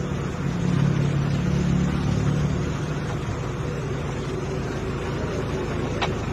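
Armored truck's engine running as it pulls away: a steady low hum, a little louder in the first couple of seconds.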